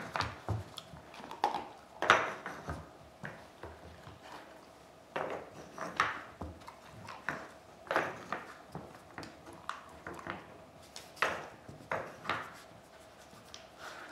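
Wooden knobs of a Nina Ottosson Dog Turbo puzzle toy clacking and knocking in their channels as a dog pushes them around with its nose and paws: a string of irregular sharp wooden clacks, one or two a second, with a short lull about four seconds in.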